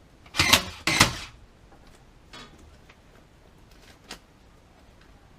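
Powertough 20V cordless staple gun / brad nailer firing twice in quick succession, about half a second apart, each shot a short sharp clack. A couple of faint knocks follow later.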